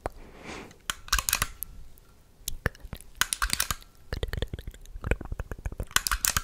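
Close-miked clicking from a small camera and a penlight worked at the microphone. Quick dense bursts of clicks come about every two and a half seconds, with scattered single clicks between them.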